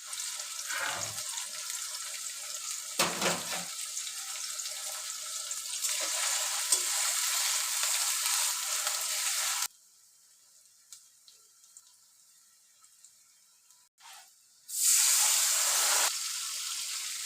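Food sizzling in a hot frying pan, with stirring. About ten seconds in it cuts off abruptly to near silence for several seconds, then loud sizzling starts again.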